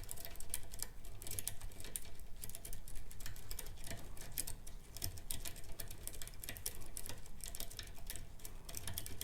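Steel lock pick scratching and clicking against the pin tumblers in the keyway of an old Corbin rim cylinder as it is picked: a rapid, irregular run of small clicks and scrapes.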